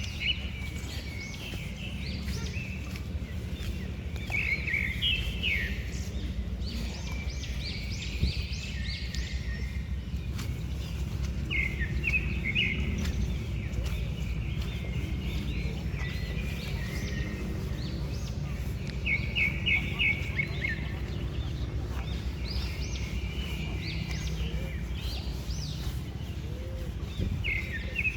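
Small songbirds singing in short, repeated chirping phrases, over a steady low rumble.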